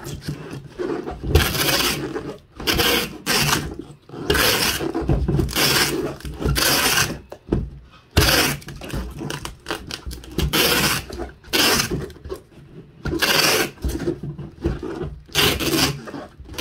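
Packing tape being pulled off the roll onto a cardboard box in about a dozen short, noisy strips one after another, with the cardboard being handled between pulls.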